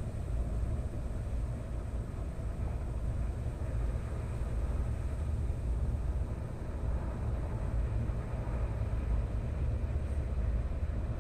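Steady low rumbling background noise with no distinct sounds standing out.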